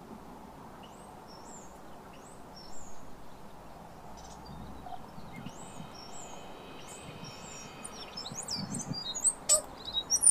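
Tui singing: a run of short, high chirps and whistled slides, then from about five seconds a held note sounding at several pitches at once under the chirps. The song grows busier and louder toward the end, with sharp clicks.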